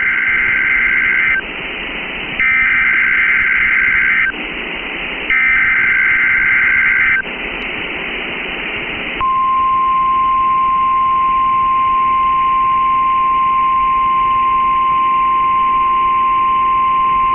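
NOAA Weather Radio Emergency Alert System tones: the end of one SAME header burst and two more full bursts of harsh two-tone digital data, each about two seconds long with radio hiss between. After a pause of hiss, the steady single-pitch 1050 Hz warning alert tone starts about nine seconds in and holds.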